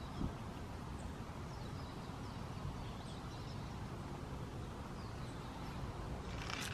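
Quiet woodland ambience: a steady low background with faint, scattered bird chirps high above it.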